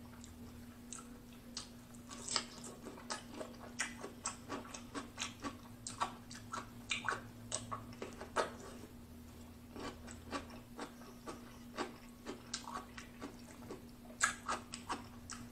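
Raw cucumber being bitten and chewed, a run of crisp, irregular crunches several times a second.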